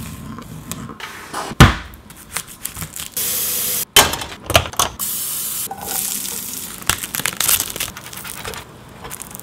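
Kitchen sounds: a knife cutting red bell pepper on a cutting board, with sharp knocks, the loudest about a second and a half in; a short steady hiss at the empty frying pan a little after three seconds; then a tortilla quesadilla sizzling in the nonstick pan, with clicks and scrapes of a spatula.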